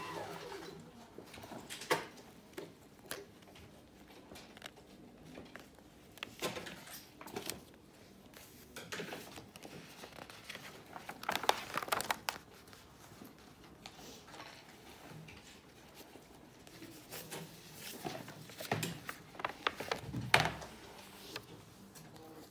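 Pages of a spiral-bound sketchbook being turned and handled: scattered paper rustles, flaps and light taps at irregular intervals, the loudest about halfway through and again near the end.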